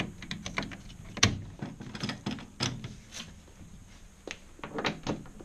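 Irregular clicks and knocks of metal and plastic parts as an EWM Mira 251 MIG welder's four-roll wire feed and front connector are worked by hand. The sharpest click comes about a second in, with another cluster of clicks near the end.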